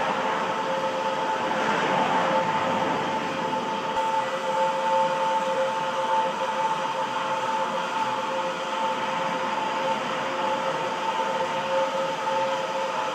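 A steady machine drone: an even rushing noise with two constant hum tones, unchanging throughout.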